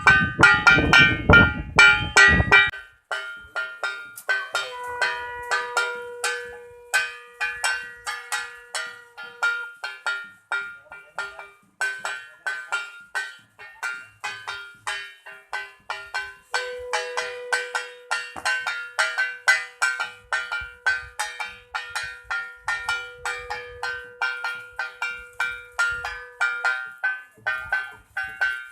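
A brass puja hand bell rung rapidly and continuously, with a conch shell (shankh) blown in two long, steady notes over it, the second about twice as long as the first.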